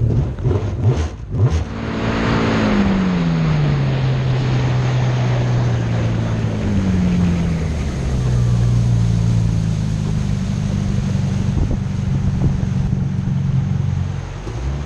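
Jet boat's engine running under way, with a rushing hiss of water. A few knocks come in the first second and a half; then the engine note falls in pitch over about two seconds and settles into a steady drone, wavering a little later on.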